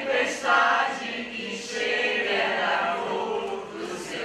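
Group of voices singing together in chorus, holding long notes.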